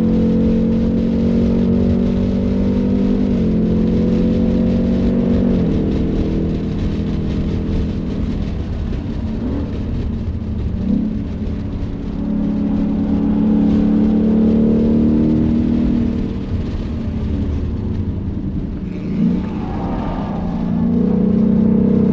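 Ford Mustang Mach 1 engine under hard track acceleration, its pitch climbing and then stepping down at two quick upshifts in the first six seconds. It eases off briefly, pulls again, drops away near the last few seconds for a corner, and begins climbing once more at the end.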